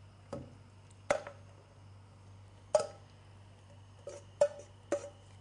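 A bowl and utensil knock and clink against the rim of a pan as pieces of browned chicken are tipped from the bowl into a tomato and vegetable sauce. There are about six separate short knocks, a few spread out and a cluster of three near the end.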